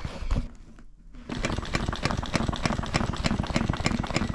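Industrial sewing machine stitching through clear vinyl and canvas, starting about a second in and running at a fast, even rate of needle strokes.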